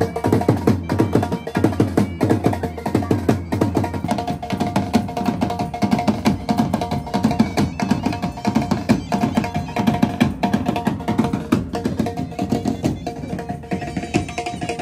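Live band music from a uniformed wedding band: drums beating a fast, even rhythm under steady held notes.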